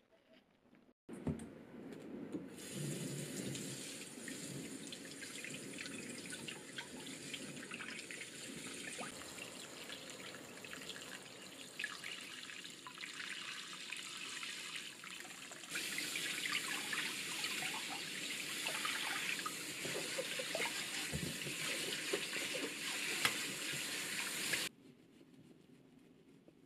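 Tap water running into a stainless steel bowl in a sink while a head of broccoli is rinsed by hand under the stream. The flow starts suddenly about a second in, gets louder and brighter about halfway through, and stops abruptly near the end.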